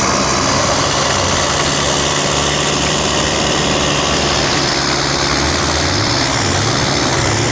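Off-road SUV's engine running steadily at low revs as it crawls up a rocky slope on a taut winch cable.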